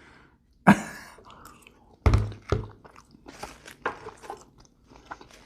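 Close-miked chewing and wet mouth sounds from someone eating, in short irregular smacks and clicks, with a louder dull knock about two seconds in.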